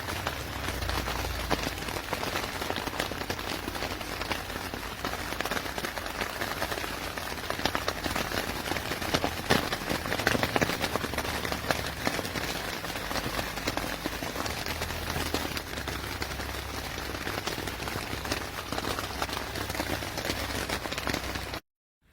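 Steady rain: a dense patter of many drops with a low rumble underneath.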